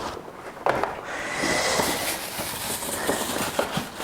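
Packaging being handled during an unboxing: a knock, then steady rustling and scraping with small clicks.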